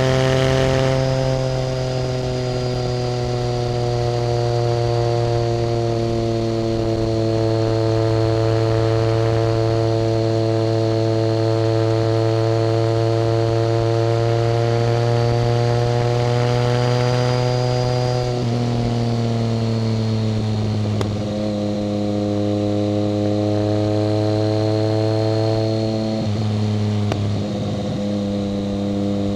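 A 1990 BMW K75's three-cylinder engine running steadily under way, its pitch sagging slowly, then dropping a step about two-thirds of the way through and again near the end.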